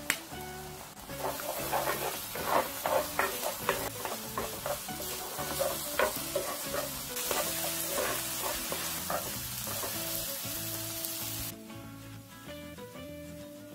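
Egg and chopped tomato sizzling in a nonstick frying pan while a wooden spatula stirs and scrambles them, with many short scraping strokes. The sizzle stops about 11 seconds in, leaving soft background music.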